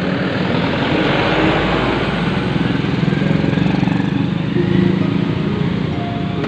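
Small motorcycle and scooter engines running as they ride past close by on a wet road, with the hiss of tyres on wet asphalt.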